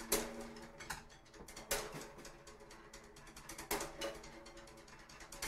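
Drums played sparsely: a sharp hit about every two seconds, each ringing briefly, with lighter taps between.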